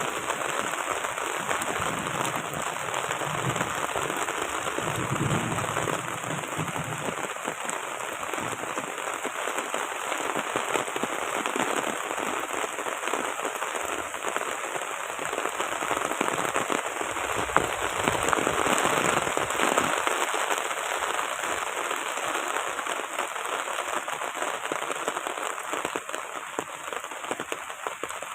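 Heavy rain pouring steadily onto surfaces, with strong wind; a low rumble swells twice, a few seconds in and again past the middle.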